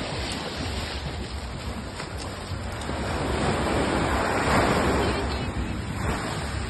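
Small shore waves breaking and washing up onto the sand, the surf swelling to its loudest about midway, with wind buffeting the microphone.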